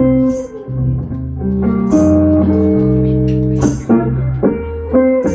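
Band playing an instrumental passage: held guitar notes over a changing bass line, with cymbal crashes about two seconds in and again near the end.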